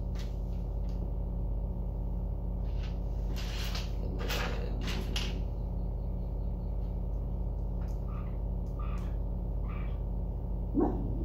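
Plastic Lego bricks being handled and pressed together, with a few short rustling clatters over a steady low electrical hum. Near the end come a few faint short chirps, which the builder hears as birds calling outside.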